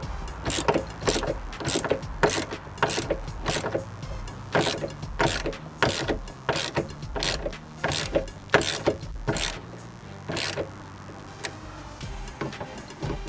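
Sharp clicks and knocks, about two a second, from hand work on a car door's fittings; they thin out near the end.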